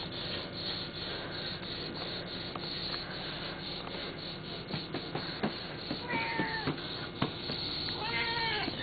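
Domestic cat meowing: one call about six seconds in, then a longer, wavering meow near the end, with a few sharp clicks in between over a steady background hiss.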